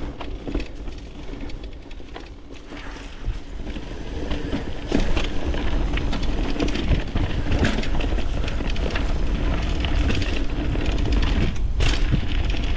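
Mountain bike running down a dirt trail: tyres rolling over the ground and the bike rattling with many short knocks over bumps, over a low wind rumble on the microphone. It gets louder from about five seconds in.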